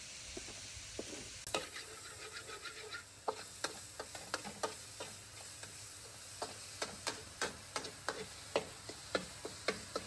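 A metal spatula scraping and clinking against a metal wok, many irregular clicks a second, while minced garlic and shallots fry with a soft, steady sizzle.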